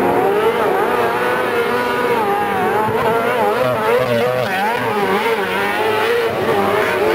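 Several kartcross buggies racing at once, their engines overlapping and revving up and down continuously, each at its own pitch.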